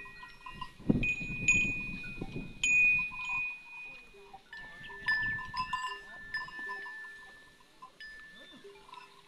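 Metal neck bells on a herd of cattle clanking and ringing, several bells at different pitches striking at odd moments and ringing on. About a second in, a loud low rustling noise comes with the bells for two or three seconds.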